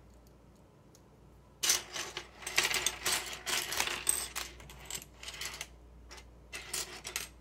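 Small plastic LEGO pieces clattering against one another as they are handled and stirred about, in quick, irregular runs of clicks starting about a second and a half in.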